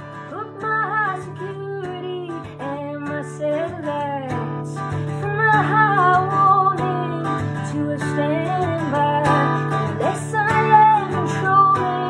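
A woman singing, accompanying herself on a strummed acoustic guitar.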